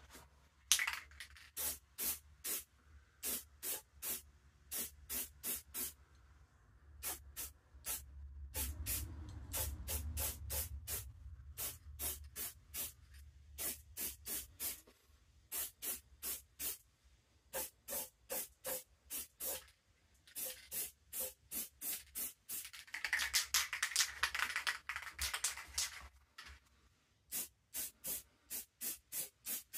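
Aerosol spray-paint can sprayed in many short, quick bursts, about two a second, with one longer spray near the end as a bike frame gets a coat of paint.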